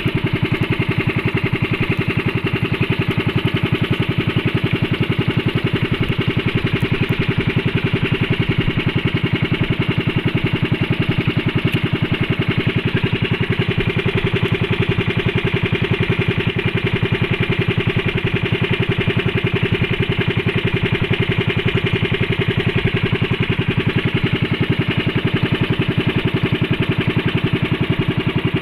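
Small engine of a motorised outrigger boat running steadily at cruising speed, with a fast, even beat that does not change.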